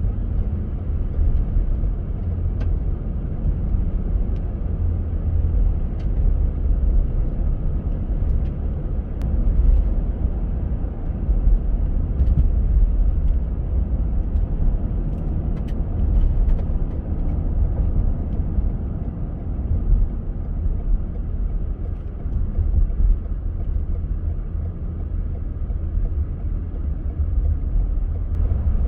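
A car driving, heard as a steady low rumble of engine and road noise with a few faint ticks scattered through it.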